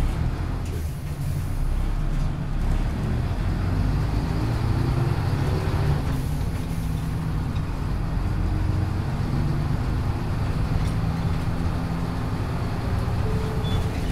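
1996 Hino Blue Ribbon city bus's rear-mounted diesel engine running under load, heard from inside the cabin along with road noise. The engine note climbs and drops back several times as the bus accelerates through its gears.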